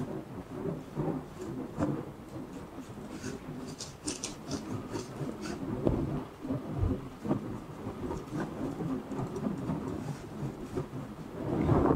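A wide flat brush spreading gesso across a Masonite panel in repeated one-direction strokes: an uneven scraping and rustling, with a few sharper, higher scratches about four seconds in.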